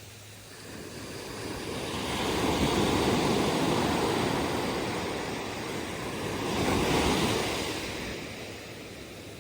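Atlantic surf on a sandy beach: a wave builds and breaks, with a second surge of rushing water a few seconds later, then the wash fades near the end.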